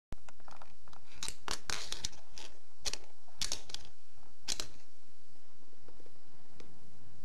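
Several short scratchy rustles and clicks from a kitten clambering over fabric upholstery right up against the microphone. Most of them come in the first half, and it is quieter after that.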